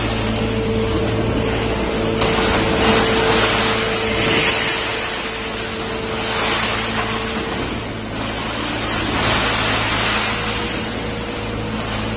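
Three-ram hydraulic metal baler running: a steady machine hum under a rushing noise that swells and eases several times.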